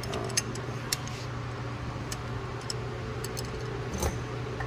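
Scattered light metallic clicks and ticks of pliers being fitted and worked onto a wood screw driven into a broken, rust-seized wheel speed sensor, over a steady low hum.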